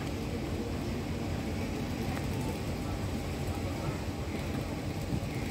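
Class M6 diesel locomotive idling with a steady low rumble while the express stands at the platform, with faint voices underneath.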